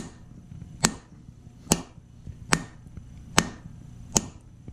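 Wooden mallet striking a wooden wedge in the top of an axe handle, six sharp, evenly spaced knocks a little under a second apart. The wedge is being driven into the handle's kerf to spread it and lock the axe head on.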